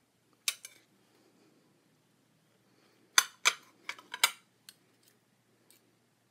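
Metal cutlery clinking on a ceramic plate. A couple of sharp clinks about half a second in as the spoon is set down on the plate, then a quick run of five or so clinks a little after three seconds in as a fork and knife cut through a stuffed cabbage roll, tapering to a few light taps.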